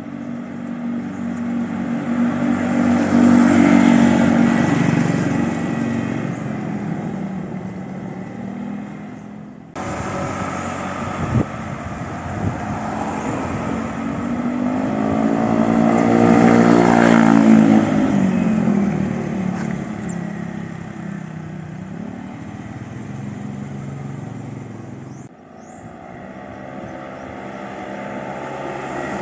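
Honda Vario 150 scooter's single-cylinder engine running through an ABF Racing aftermarket stainless 'standar racing' exhaust on the road. The exhaust note swells to a peak and falls away twice, and cuts off suddenly twice.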